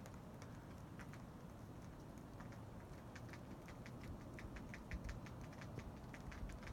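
Faint irregular ticking and pattering, a few scattered ticks at first, then several a second from about two and a half seconds in, over a low rumble.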